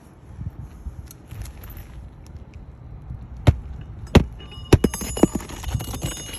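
A few sharp knocks or taps, the loudest about three and a half and four seconds in, then a thin steady high-pitched tone from about five seconds in.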